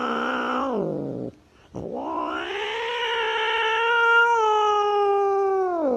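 Cat yowling: two long, drawn-out wails, a short one and then one held for about four seconds that falls in pitch at its end. It is a defensive threat yowl from a cat with its back arched.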